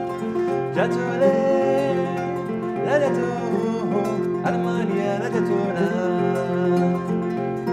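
A 21-string West African kora played in a steady, repeating plucked pattern, with a man singing over it; sung phrases enter about a second in, again around three seconds and around four and a half seconds.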